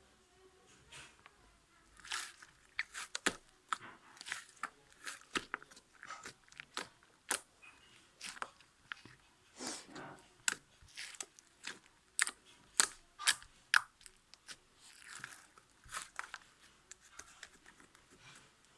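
Slime mixed with soothing gel being squished and worked by hand, giving irregular sticky clicks, pops and crackles.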